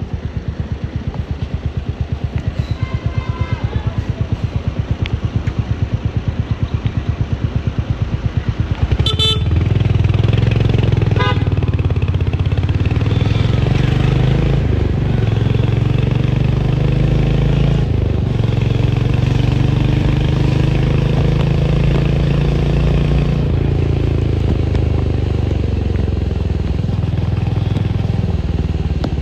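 Royal Enfield Hunter 350's single-cylinder engine idling with an even, slow exhaust thump for about nine seconds, then pulling away and accelerating, louder, its note rising and dropping back at gear changes, over street and traffic noise.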